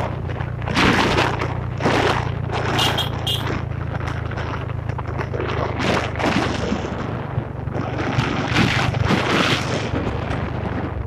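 Wind buffeting the microphone of a moving motorbike in irregular loud gusts, over the steady low drone of the motorbike's engine.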